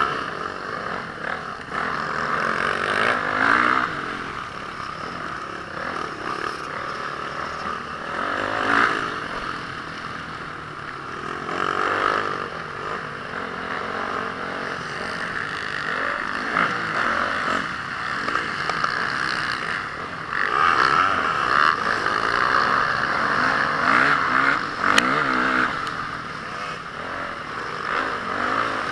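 Honda CRF450R motocross bike's single-cylinder four-stroke engine revving hard and easing off over and over, as when riding a track, with its pitch rising and falling and louder surges every few seconds.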